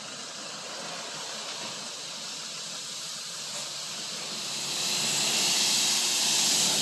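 High-pressure lance of a coin-operated self-service car wash spraying water onto a dirty Toyota Hilux pickup: a steady hiss that grows louder about four and a half seconds in.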